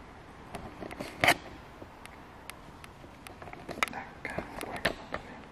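Footsteps and camera-handling knocks as a person walks with a handheld camera across a bare floor: a few scattered clicks and light thuds over faint hiss. The loudest knock comes about a second in, and a quick run of clicks follows near the end.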